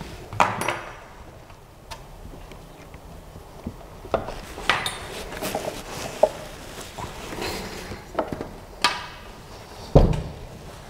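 Knocks, clanks and rattles of a Creality CR-6 SE 3D printer's metal gantry frame being handled and set into place on its base. They come irregularly, and the loudest is a thud near the end.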